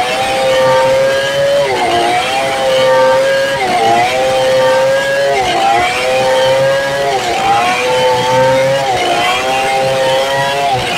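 Stihl 070 two-stroke chainsaw cutting lengthwise through a squared red meranti log at high revs. Its engine pitch dips under load and recovers about every two seconds.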